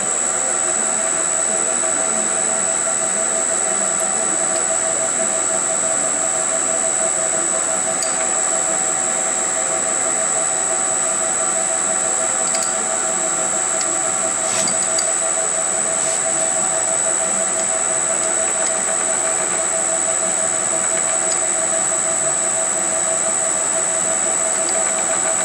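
Metal lathe running steadily at low speed while a cutter turns the steel pole piece of a loudspeaker magnet. An even machine whine with a thin high tone held above it.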